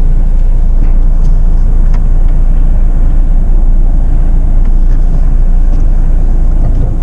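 Jeep Meridian's diesel engine running at low revs as the SUV crawls over an off-road trail, a steady low rumble, with a few faint knocks.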